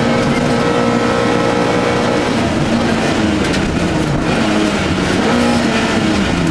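Opel Manta historic rally car's engine heard from inside the cabin, driving hard on a gravel stage, its pitch held steady and then rising and falling from about two seconds in, over tyre and gravel road noise. The driver says the engine no longer pulled well on this stage.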